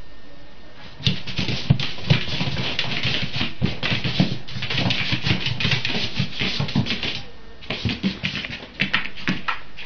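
Rapid clicking and rattling with soft thumps from a kitten scrambling after a small toy on a carpeted floor, starting about a second in and easing briefly twice.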